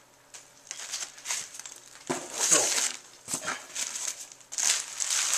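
Bubble wrap crinkling and styrofoam packing peanuts rustling as a bubble-wrapped package is handled in a cardboard box, in irregular bursts.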